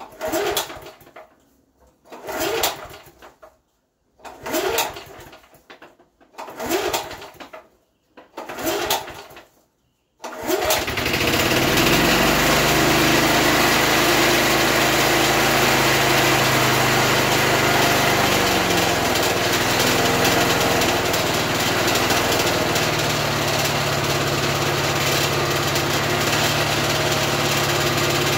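1976 Rover Prince 19 lawn mower being pull-started cold after long storage: five pulls of the recoil starter, each a short rising whir, then the engine catches about ten seconds in and keeps running steadily.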